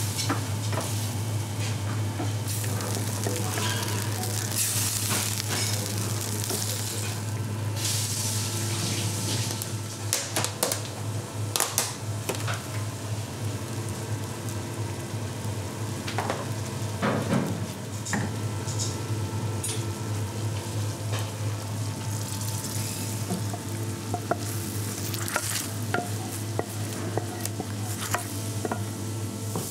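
A wooden spoon stirring and scraping a thick white sauce in a frying pan on a gas hob, the sauce sizzling, over a steady low hum. A few sharp knocks now and then.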